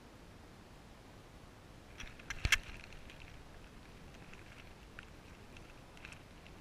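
A dog chewing a bone, with a quick cluster of sharp cracks about two and a half seconds in and scattered smaller clicks of gnawing after.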